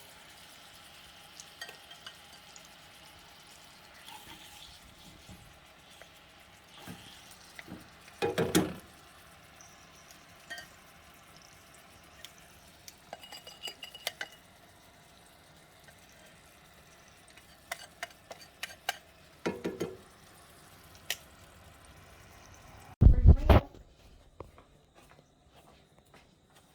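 Coated chicken pieces sizzling in a frying pan, a steady faint hiss, with tongs and utensils clattering against the pan now and then and a loud knock near the end.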